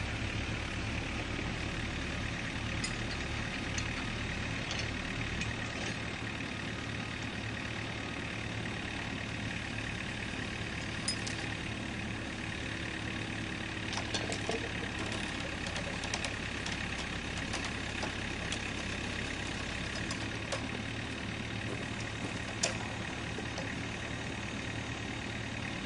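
A Cat mini hydraulic excavator's diesel engine runs steadily, with a few sharp clicks and clanks, the loudest about three-quarters of the way in.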